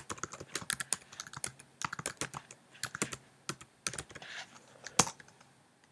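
Typing on a computer keyboard: a quick, irregular run of key clicks, ending with a louder keystroke about five seconds in.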